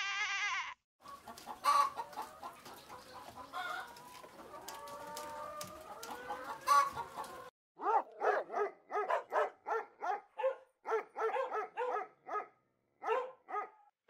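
A sheep's bleat ends at the start, then chickens cluck and a rooster crows among scattered clicks for several seconds, followed by a run of short, evenly spaced calls, about two a second, broken by a brief pause near the end.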